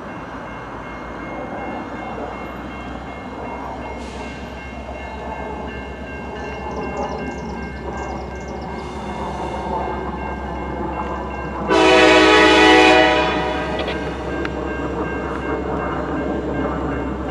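Diesel freight locomotives rumbling steadily as the train comes on, with one loud air-horn blast of about a second and a half, a chord of several tones, about two-thirds of the way in.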